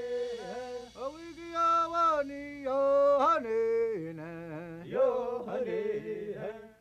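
A man's voice singing a wordless chant in long held notes that swoop and waver, fading away near the end.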